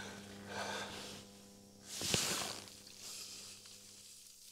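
Quiet room tone with a steady low hum. A brief rustle with a sharp click comes about two seconds in.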